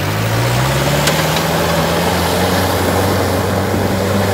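Modified jeep's engine pulling through deep mud, its pitch rising over the first two seconds or so and then holding steady, over a constant hiss of tyres churning mud and water.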